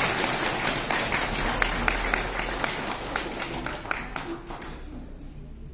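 Audience applauding with dense clapping that dies away in the last second or so.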